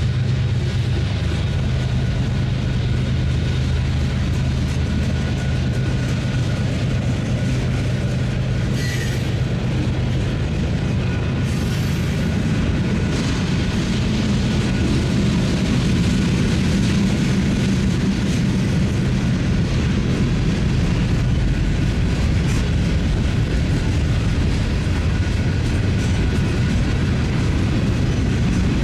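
Freight train passing: a steady low drone of diesel locomotive engines for the first dozen seconds or so, then the continuous rumble of the cars rolling over the rails.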